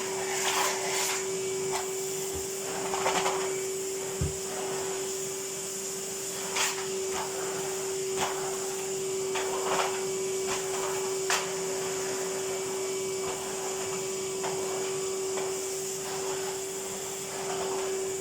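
A Numatic Henry cylinder vacuum cleaner runs steadily with a constant motor whine as it hoovers a carpet. Several short knocks are scattered through, one duller thump about four seconds in among them.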